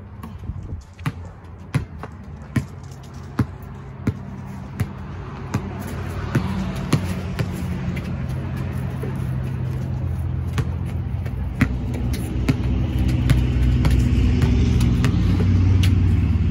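A basketball dribbled on a concrete driveway, sharp bounces about every three-quarters of a second, then more scattered bounces. From about six seconds a motor vehicle's engine hum builds and grows louder under them.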